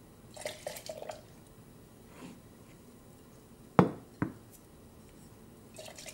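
Glass coffee server and ceramic mug handled on a countertop: a few light glassy clinks, then two sharp knocks a little under half a second apart, the first louder, as dishware is set down, and a few more clinks near the end.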